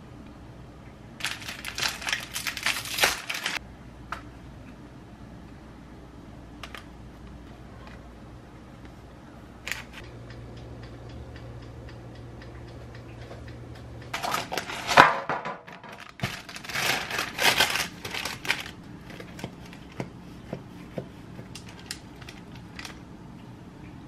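Kitchen handling noises: three bursts of clattering and rustling from a metal baking pan and parchment paper, one near the start and two a little past the middle, with scattered small clicks between.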